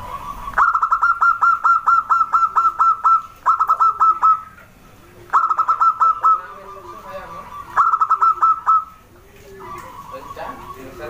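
Zebra dove (perkutut) calling: bursts of rapidly repeated high cooing notes, about five a second. There are four bursts, the first and longest lasting over two seconds, with short pauses between them.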